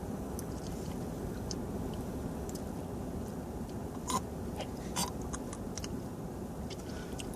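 A person chewing a crunchy cricket with the mouth close to the microphone: scattered small crunching clicks, the two loudest about four and five seconds in, over a steady low background rumble.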